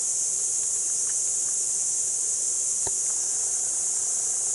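Steady, shrill chorus of insects droning without a break, with one faint click about three seconds in.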